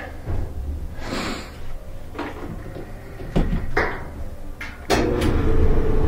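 A few clicks and knocks as the Whirlpool-built gas dryer is plugged back in and handled. About five seconds in, the dryer starts up for a test run after its gas valve coils were replaced: its drum motor runs with a steady hum and low rumble.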